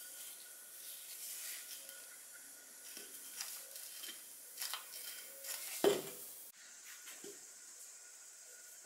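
Old rusty hand-pump oil can being handled: small metal clinks and scrapes as the can, its spout and its screw-on pump head are turned and worked, with one louder knock about six seconds in.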